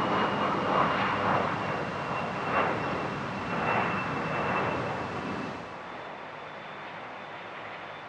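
The twin turbofan engines of a rear-engined regional jet at climb power just after takeoff: a loud jet roar that surges and fades, with a steady high whine running through it. About five and a half seconds in, it cuts off suddenly to a quieter, steady rushing noise.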